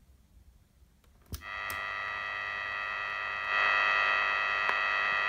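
A click as a 1970s Grundig Ocean-Boy 210 portable radio is switched on, then its speaker gives steady AM-band static with several steady whistling tones, untuned noise before a station comes in. The hiss and tones step up in loudness about halfway through as the volume is turned up.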